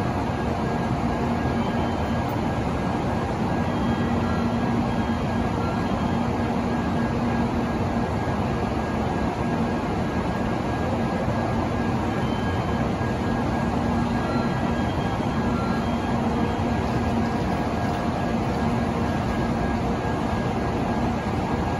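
Shinkansen train pulling slowly into a station platform: a steady rumble of wheels on rail and running gear, with a faint constant hum.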